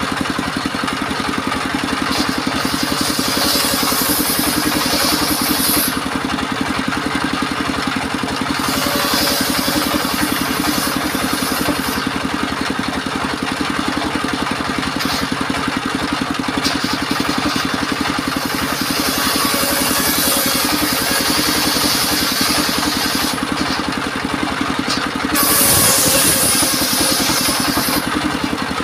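Engine-driven portable circular sawmill running steadily, its blade ripping through timber in repeated cuts lasting a few seconds each, with brief easier spells between passes.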